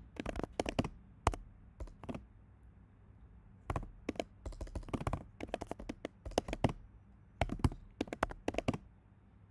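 Typing on a computer keyboard: irregular runs of key clicks broken by pauses of up to a second or so.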